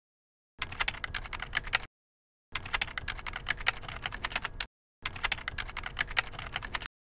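Computer keyboard typing: rapid keystrokes in three runs, broken by short pauses about two seconds and five seconds in.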